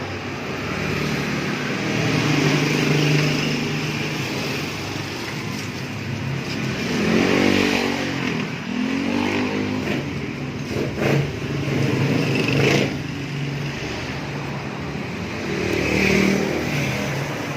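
Suzuki Raider 150 motorcycle's single-cylinder four-stroke engine idling, blipped on the throttle several times so the revs rise and fall. There are a few sharp clicks in the middle.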